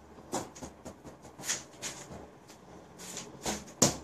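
A basketball tapped repeatedly against a wall and caught by hand: a run of short, irregular taps, roughly two a second, the loudest near the end.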